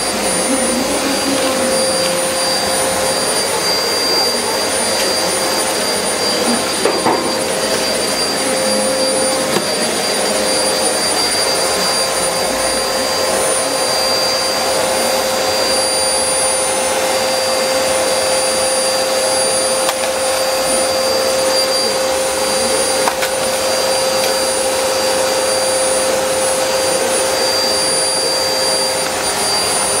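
Vacuum cleaner running steadily, a constant motor noise with a fixed high whine.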